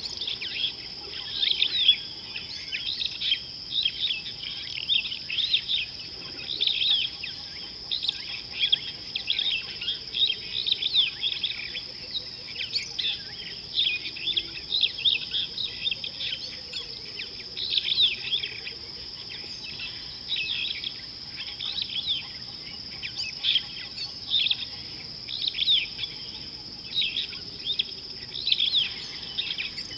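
Birds chirping in quick, short, repeated high calls, several overlapping, over a continuous steady high-pitched whine.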